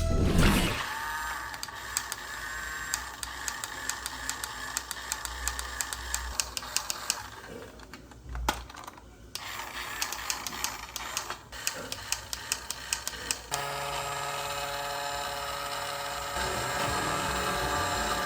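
Quick irregular clicks and rattles, as of plastic toy parts being handled; about 13 seconds in, a steady hum with several pitches takes over.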